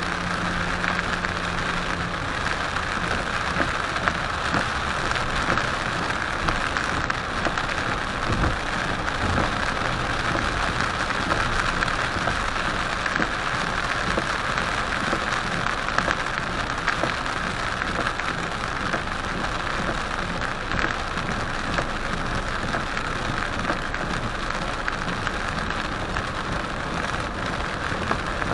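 Heavy rain beating steadily on a moving car, picked up by a dashcam inside the car, as a dense even hiss.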